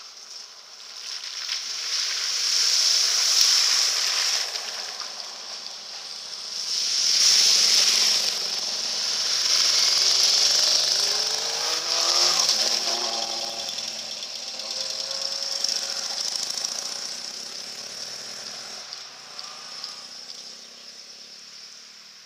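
A car and motorcycles driving through a shallow ford one after another, their wheels throwing up water in several loud rushing splashes. A motorcycle engine is heard passing through the water about twelve seconds in, and the splashing fades away near the end.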